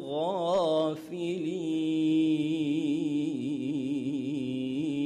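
A man reciting the Quran in a melodic, chanted style, drawing out the end of a verse ('lamin al-ghāfilīn') as one long ornamented note. A rising-and-falling flourish comes at the start, then a held tone with quick quavering turns.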